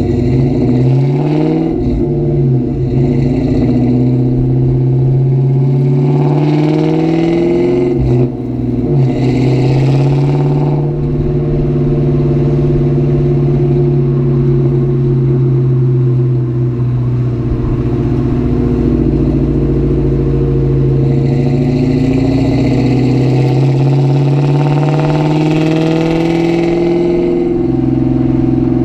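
2004 Ford Mustang GT's 4.6-litre V8 engine and exhaust pulling through the gears: the pitch climbs, drops with a gear change, climbs again, holds steady while cruising, and rises once more toward the end.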